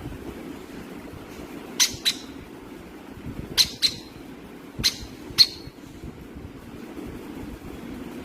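Parrot giving short, sharp squawks in three quick pairs, over a low steady hum.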